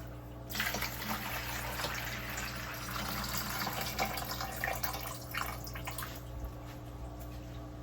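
Water sloshing and splashing in an aquarium as a container is worked through it to scoop up fine sand. The splashing dies down about six seconds in, leaving a steady low hum.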